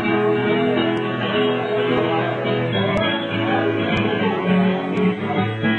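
Live acoustic band music led by a strummed acoustic guitar.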